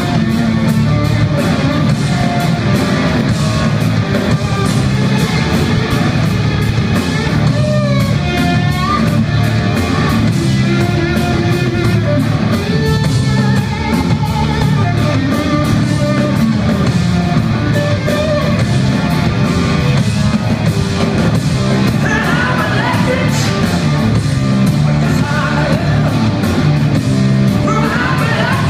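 A rock band playing loud live music: a steady drum beat, electric guitar and a singer, with the vocal line coming through most clearly about eight seconds in and again near the end.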